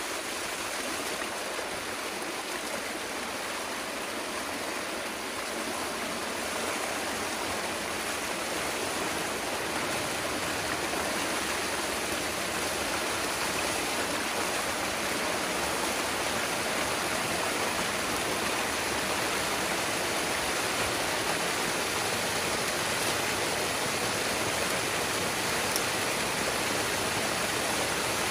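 Water rushing out through a breach in a beaver dam as the gap is opened up. A steady rushing that grows gradually louder and fuller as the flow strengthens.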